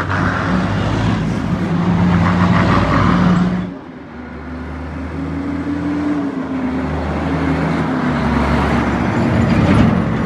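Road traffic passing close by: a minibus engine goes by, then after an abrupt cut a heavy diesel dump truck engine approaches and passes, growing louder toward the end.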